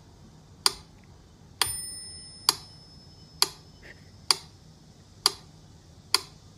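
Sharp metallic ticks, evenly spaced just under a second apart, seven in all. The second tick leaves a thin, high bell-like ring that hangs on for about two seconds.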